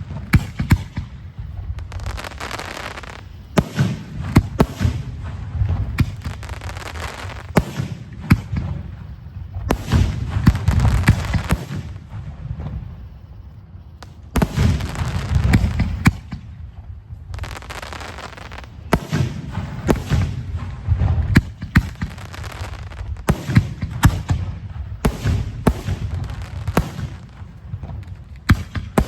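Professional aerial firework shells launched from mortars and bursting in quick succession: many sharp bangs and crackles over a rolling low rumble, with a short lull about halfway through.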